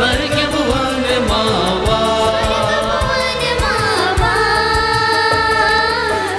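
Christian devotional song: singing over an instrumental backing with a steady beat, a long note held through the second half.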